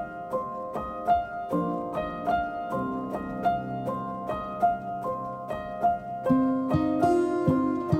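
Background music of plucked notes, harp- or piano-like, in a steady rhythm of about two to three notes a second, growing fuller and brighter near the end.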